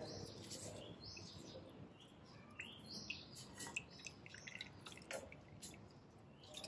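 Water dripping and trickling off a bundle of bamboo-leaf-wrapped rice dumplings as it is lifted out of the soaking water in a pressure cooker's inner pot: a string of short, high plinks.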